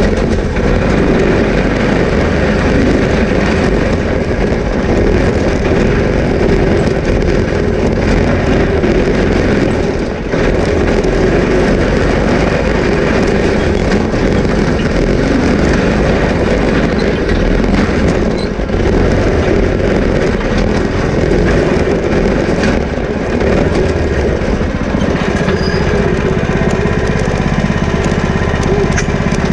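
Off-road go-kart's small engine running loud and close as the kart drives over rough dirt, with rattling and road noise mixed in. In the last few seconds it settles to a steadier idle.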